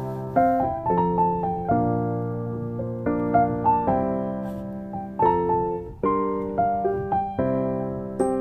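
Background piano music: a gentle melody with chords, notes struck about every half second.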